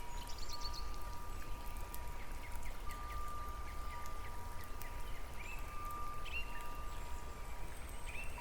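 Nature ambience: birds chirping and trilling over a steady low rumble, with two steady high tones that hold for seconds at a time.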